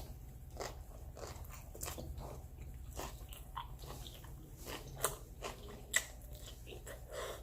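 Mouth sounds of a person biting and chewing a Subway sandwich close to the microphone: irregular small crunches and wet clicks, with two sharper clicks about five and six seconds in.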